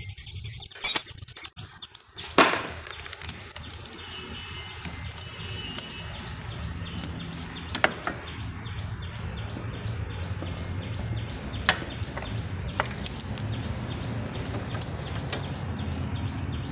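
Hand tools working on a motorcycle engine's clutch cover bolts: a scattering of sharp metallic clicks and knocks, the loudest two in the first few seconds, over a steady low hum. Birds chirp faintly in the background.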